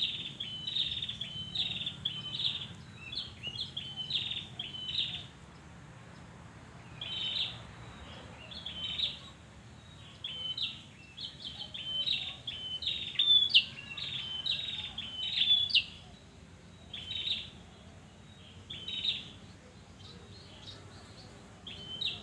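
Red-headed prenjak, a small prinia-type songbird, singing in repeated bursts of short, high chirping phrases, with a few pauses of a second or two between the bursts.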